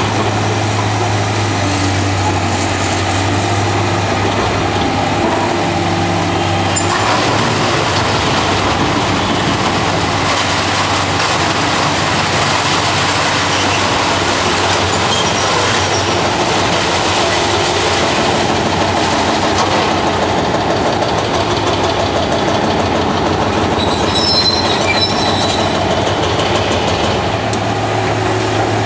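Heavy diesel demolition excavators at work, the CAT 350 L's engine running steadily under load while its bucket digs into broken concrete rubble, with continuous clattering and crunching. A brief high metallic squeal comes near the end.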